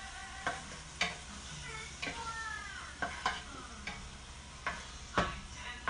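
Garlic, onion and tomato sizzling in a frying pan while a utensil stirs them, knocking and scraping against the pan in sharp clicks every half second to a second and a half.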